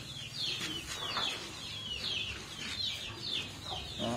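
Chicks peeping: a steady run of short, high, falling chirps, several a second.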